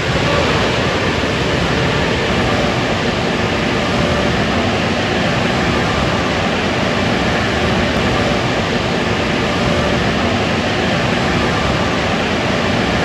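Superior Tempest car-wash dryer blowers starting up: the air rush comes up to full strength at the very start, then runs as a steady loud roar of blowing air.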